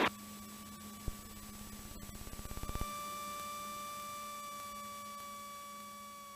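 Cessna 182T's stall warning horn sounding on short final: a quickening flutter about two seconds in that settles into a steady reedy tone, over a low steady hum. The horn warns that airspeed is getting close to the stall.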